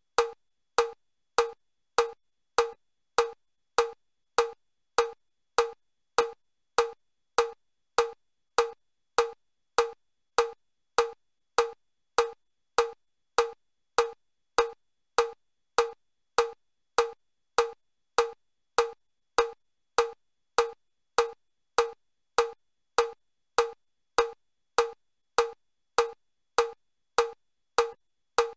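Metronome ticking steadily with short wood-block-like clicks, about five every three seconds (100 beats a minute). This pace sets level 3 of the Chester step test, 25 steps a minute.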